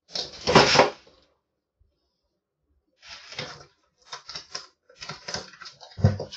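Kittens playing at a sisal scratching roll: a quick, irregular run of scratching and clattering from claws and the roll on the floor. A loud scraping rustle comes about half a second in, before a short quiet gap.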